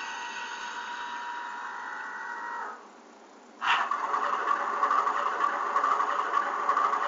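A steady tone ends with a short falling slide just under three seconds in. About a second later a model locomotive's sound unit abruptly starts an engine sound, which runs on at a steady idle.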